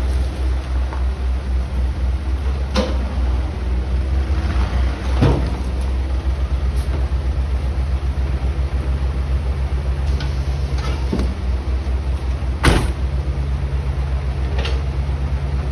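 Backhoe's diesel engine running steadily, with several sharp knocks, one near the end the loudest.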